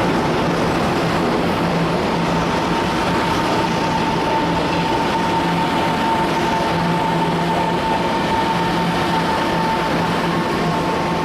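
Taiwan Railways train running through the station: steady, loud rumbling rail noise with a held whining tone over it.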